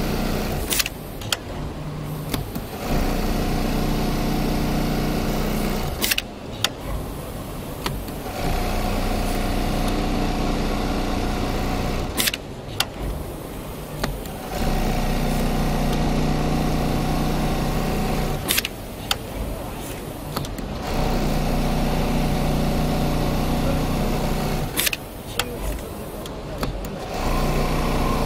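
Industrial programmable pattern sewing machine running as it stitches leather: a steady machine hum, louder for about four seconds at a time, then quieter. Every six seconds or so a couple of sharp clicks mark a stop between runs.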